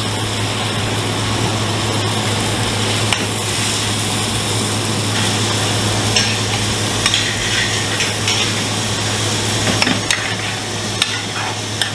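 Rice and curry sizzling in steel pans over gas burners, with a steady low hum underneath and a few short clinks and scrapes of a spoon in the pan.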